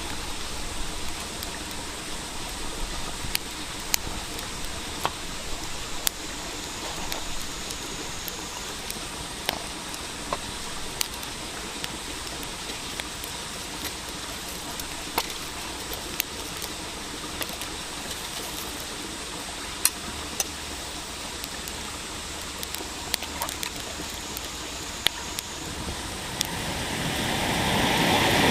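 Campfire crackling: irregular sharp pops and snaps over a steady hiss. Near the end a loud rushing noise swells up over a couple of seconds and then cuts off suddenly.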